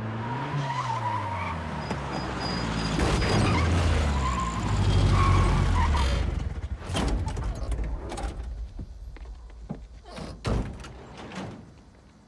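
A Volkswagen Vanagon van's engine running as it drives up and turns in, with brief tyre squeals, its pitch shifting before it falls away about halfway through. Then a few sharp thuds, its doors shutting.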